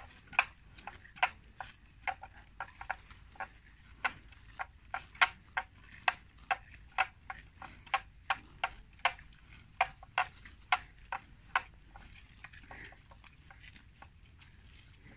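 Water buffalo tearing grass as they graze: a run of crisp rips, about two or three a second, that stops about three-quarters of the way through.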